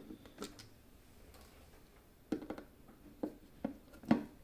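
Light clicks and knocks of hard plastic food-processor parts being handled and worked apart, with a few separate taps about half a second to a second apart later on.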